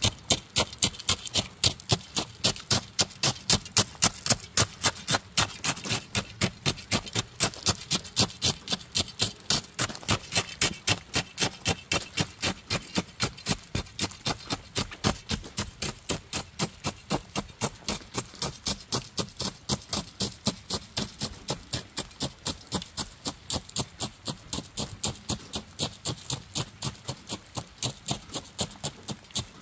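Hand tamping bar jabbed again and again into crushed-stone ballast to pack it under the ties of a 7-1/2 inch gauge track, each stroke a sharp crunch of steel on stone, about three a second in a steady rhythm.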